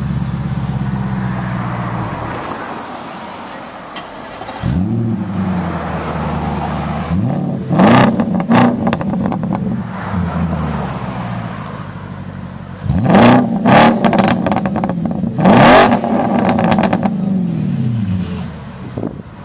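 Audi S5 engine through an AWE Track exhaust, idling and then blipped up in rev several times, falling back to idle between blips. Sharp crackles come in around the higher revs.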